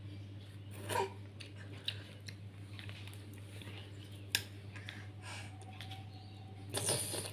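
A toddler sucking and slurping on a watermelon ice lolly, with a few short wet mouth clicks and a longer slurp near the end, over a steady low hum.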